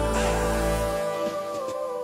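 Background music of sustained, held notes; the deep bass line drops out abruptly about a second in.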